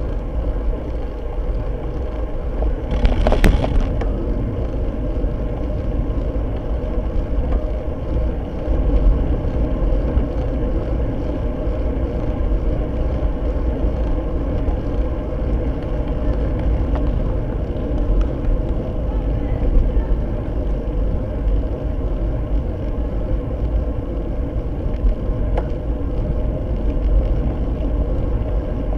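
Wind rumbling on a bicycle-mounted camera's microphone, with tyre and road noise from a road bike riding at speed, and a brief hiss about three seconds in.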